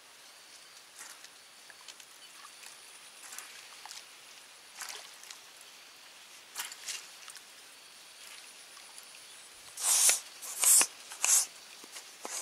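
Quiet outdoor ambience with scattered soft rustles and clicks, then three loud, brief rustling hisses close to the microphone about ten seconds in.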